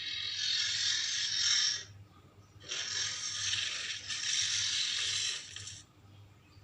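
Ceratosaurus sound effect: harsh, breathy hisses with no clear pitch. One hiss runs to about two seconds in, and two more follow back to back from about three seconds to near six.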